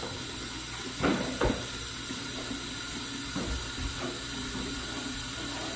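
Kitchen faucet running a thin, steady stream of water into a glass jar, a continuous hiss of water filling, with a couple of faint knocks about a second in.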